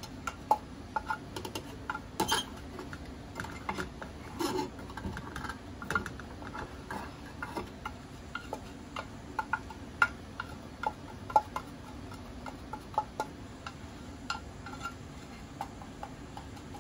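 A slotted nylon turner scraping and tapping against a square aluminium camp pan in irregular short clicks as curry powder is dry-roasted in it, over the steady rush of a small gas burner.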